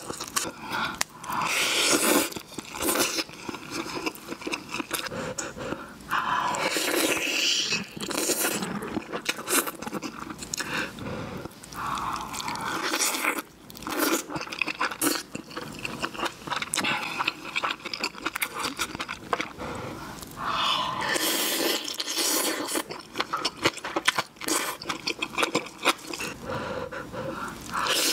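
Close-miked eating: a person biting, gnawing and chewing meat off pork back bones from a stew. The noises are wet and irregular, with crunching and scraping, in short bursts one after another.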